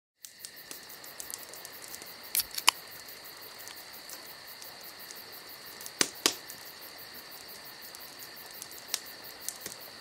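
Crickets chirring steadily, with sharp clicks: two close pairs, about two and a half and six seconds in, and a couple of single ones near the end.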